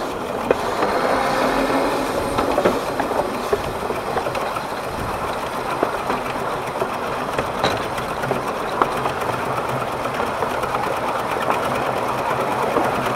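12¼-inch gauge steam locomotive, built by the Exmoor Steam Railway, running steadily with a fast, even rhythm of exhaust beats and wheel noise on the rails, working hard up a 1-in-50 gradient.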